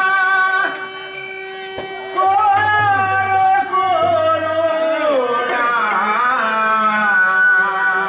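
Bengali folk bolan music. A portable hand-pumped harmonium holds a sustained chord that thins out briefly about a second in. A voice then sings a long line that slides downward over it.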